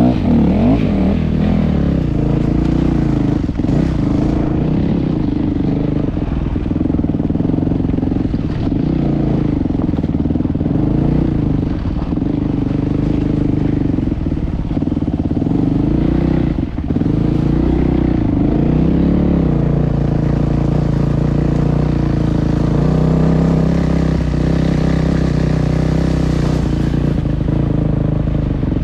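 An engine running steadily, its pitch wavering up and down a little.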